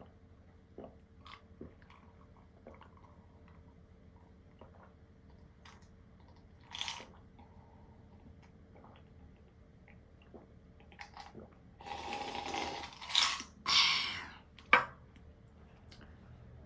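Quiet close-up eating sounds: soft chewing with small mouth and utensil clicks. About twelve seconds in, a few seconds of louder noisy sound come, ending with a sharp click.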